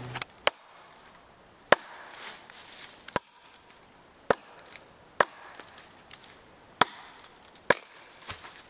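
Ontario kukri chopping into a thin standing dead sapling: seven sharp chops of steel biting wood, roughly one every second or so.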